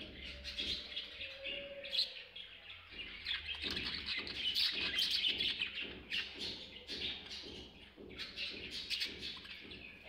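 Budgerigars chattering: a dense run of quick chirps and warbles, loudest in the middle.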